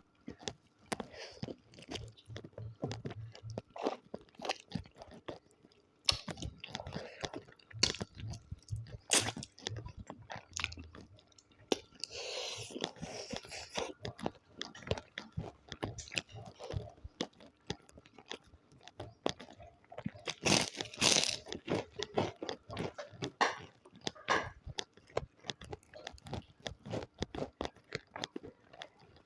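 Chewing and crunching food close to the microphone: many irregular sharp crunches, with louder bursts of crunching near the middle and again about two-thirds of the way through.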